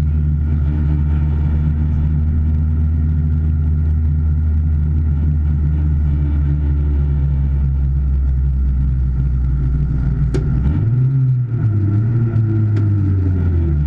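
Car engine running at low revs, heard from inside the cabin, steady at first; about ten and a half seconds in the revs rise briefly and waver for a couple of seconds before settling back down.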